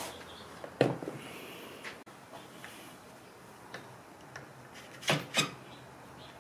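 Handling knocks and clicks as a steel grinder stand on a wooden table is fitted with a bar clamp: one sharp knock about a second in, then two quick clicks near the end as the clamp is squeezed tight.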